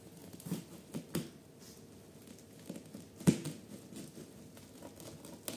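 Rustling of bougainvillea stems and leaves with a few short knocks as a coir-wrapped support pole is set in among them; the loudest knock comes a little over three seconds in.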